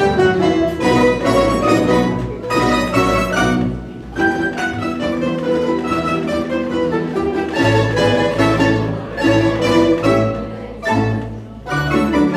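Tamburica orchestra playing a folk tune: small plucked tamburicas carry the melody in tremolo over guitar-like chords and a plucked double bass, with two brief lulls between phrases.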